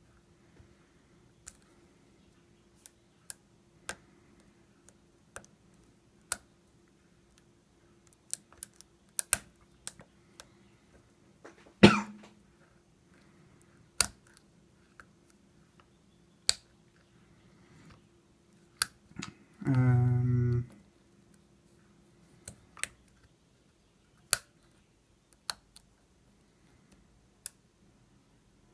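Metal pick and tension wrench working the pin tumblers of a Master Lock bike lock: scattered small sharp clicks, with one louder click about twelve seconds in. A short low hum, about a second long, comes about twenty seconds in.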